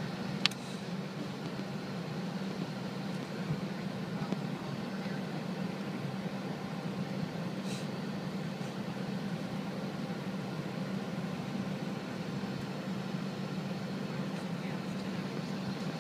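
Steady cabin drone of a Boeing 717 taxiing, its rear-mounted Rolls-Royce BR715 engines at low power, heard from inside the passenger cabin. A sharp click comes about half a second in.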